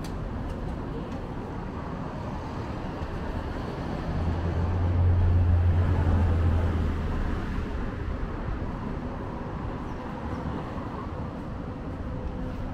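Street traffic: a road vehicle passes with a low rumble that swells about four seconds in and fades a few seconds later, over a steady hum of traffic.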